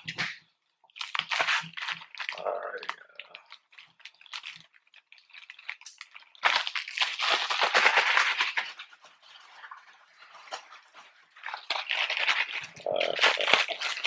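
Rustling and crinkling from handling food and its packaging, in three bursts of a few seconds each, as chicken sandwiches are being coated in sauce.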